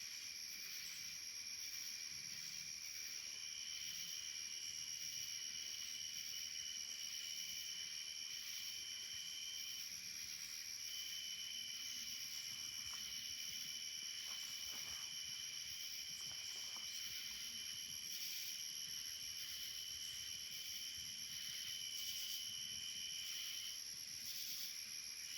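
Night insects chorusing: a steady high-pitched trilling at several pitches at once, one of which drops out briefly midway and stops shortly before the end.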